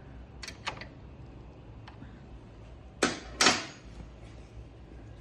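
Sharp metallic clicks and clacks from hand tools on the bolts of a motorcycle's body control module casing as they are snugged down: a few light clicks early, then two louder clacks about three seconds in.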